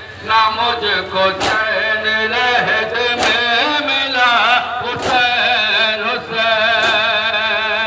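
Male voices chanting a noha, a mourning lament, in a steady rhythm. A crowd of mourners beats their chests in unison in time with it, making four sharp slaps about two seconds apart.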